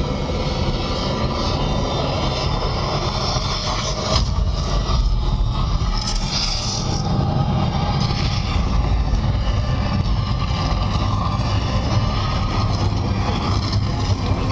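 A steady, loud rumbling drone with a hazy, sustained layer above it, from the soundtrack of a projection-mapping light show played over loudspeakers. It swells slightly a few seconds in.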